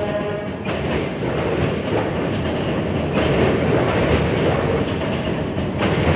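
New York City subway train running along the track: a steady, loud rumble of wheels on rail, with faint wheel squeal now and then.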